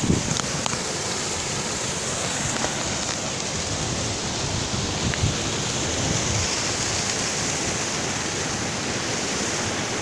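Small rocky waterfall cascading into a pool: a steady rush of falling water.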